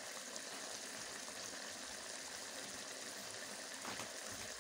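Vegetable sabzi sizzling and bubbling steadily in a steaming kadhai on the stove.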